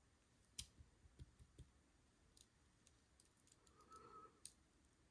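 Faint, scattered clicks of small metal tools against a Mul-T-Lock Junior lock cylinder, a few seconds apart, as its driver pins are worked out from the back during gutting.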